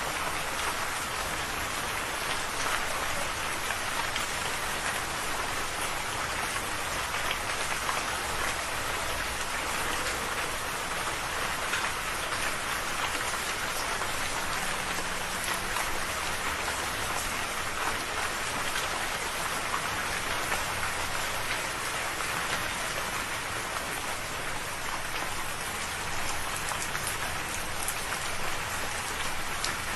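Steady rain falling on a surface, a dense even patter of many small drops without a break.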